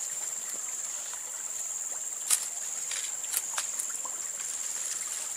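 Steady high-pitched insect drone, with a few sharp clicks and snaps as a thin stick is worked into a hole in a hollow log, the loudest a little over two seconds in.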